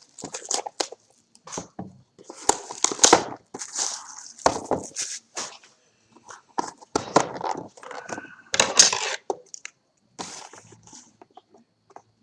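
Crinkling and rustling of packaging and cardboard as a sealed box of trading cards is handled and opened, in irregular bursts with brief pauses.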